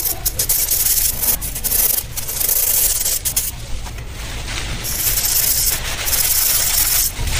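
Dry powder being rubbed by hand through the mesh of a sieve: a continuous scratchy rubbing with many small irregular scrapes.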